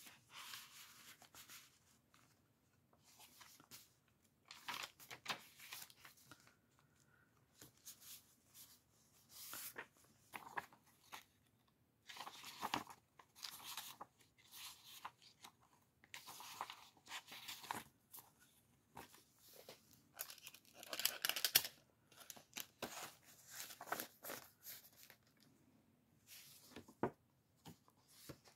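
Paper pages and cardstock inserts of a handmade junk journal rustling and crinkling as they are turned and handled, in irregular bursts with small clicks and quiet gaps between.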